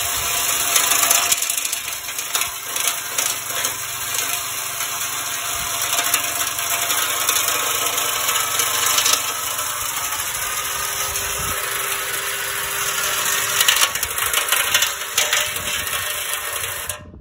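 Drill spinning a dryer vent brush fitted with string trimmer line inside a steel 1968 Corvette frame rail, a steady motor whine with scraping and rattling as the line scours loose rust and scale from the inside of the rail. The noise cuts off suddenly near the end.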